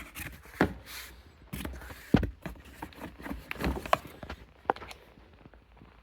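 Irregular knocks, clicks and scrapes of parts and tools being handled, with a sharp thump about two seconds in.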